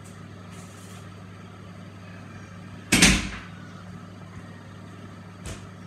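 A steady low hum, with one sharp knock about three seconds in and a fainter click near the end.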